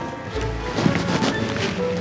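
Background music with held notes and a light beat.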